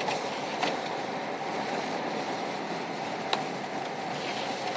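Steady road and tyre noise heard inside a car driving on a snow-covered road, with one short sharp click about three seconds in.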